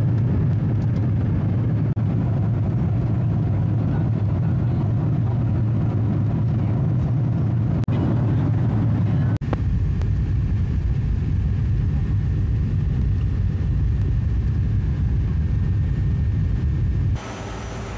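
Steady low rumble of airliner cabin noise in flight: engine and airflow noise heard from a passenger seat. About a second before the end it gives way to a quieter, even hum.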